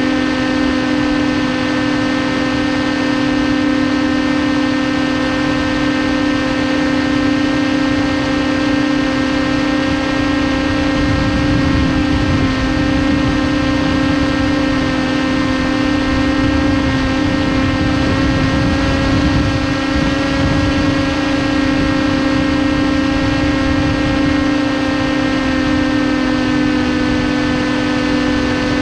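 Brushless electric motor and propeller of a TBS Caipirinha 2 FPV flying wing, whining at a steady pitch at constant cruise throttle. Wind rushes over the onboard camera's microphone, stronger and gustier from about a third of the way in.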